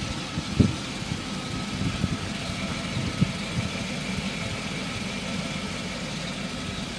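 1987 Pontiac Firebird's engine idling steadily, with a sharp thump just over half a second in and a few smaller knocks later.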